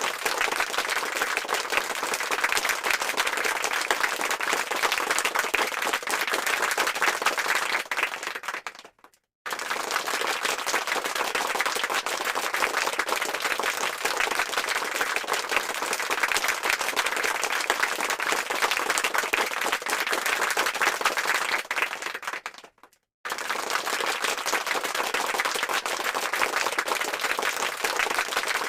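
Crowd applause sound effect: dense, steady clapping of many hands. It fades out to a moment of silence about 9 seconds in and again about 23 seconds in, then starts again at full level each time.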